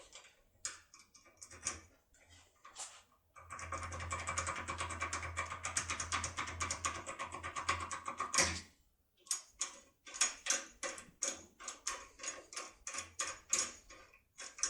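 Foil-wrapped lockpick, fitted with a single foil strip, being worked in a KALE six-pin lock cylinder. It starts as scattered metallic clicks, about three seconds in turns to fast continuous rattling as the pick is jiggled for several seconds, then goes on as separate clicks about two to three a second.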